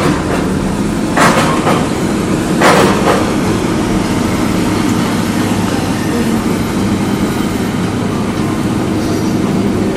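Komatsu PC200-8 crawler excavator's diesel engine running steadily under load as the machine works close by, with two short louder bursts of noise about one and three seconds in.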